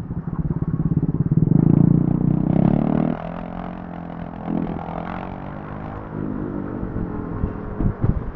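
Vespa scooter engine running on the road in city traffic, heard from a mic inside the rider's helmet. Its note is loudest for the first three seconds, then drops and settles.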